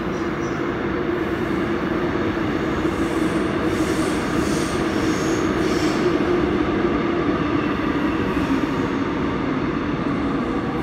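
Seoul Subway Line 5 train running in the station's track area, a steady loud rumble with a hum that swells slightly toward the middle. Faint high wheel squeals come in about three to six seconds in.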